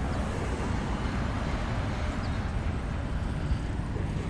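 Car engines idling, a steady low rumble with no revving.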